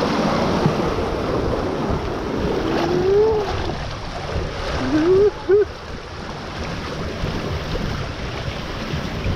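Rushing, splashing water as a rider slides feet-first down a fiberglass water slide. Two brief rising squeals come about three and five seconds in.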